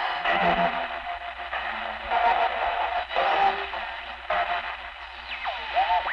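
Shortwave radio reception of the Wellington, New Zealand maritime station's identification broadcast, with its musical component, buried in heavy static hiss. Brief tones come and go through the noise, and near the end a whistle swoops steeply down and back up.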